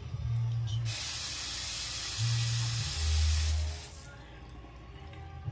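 Bathroom sink tap turned on for about three seconds, water spraying into the basin with a steady hiss, then shut off abruptly.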